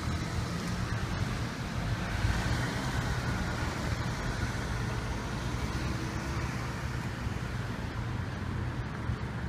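Road traffic: motor vehicles running past, a steady low rumble of engines and tyres.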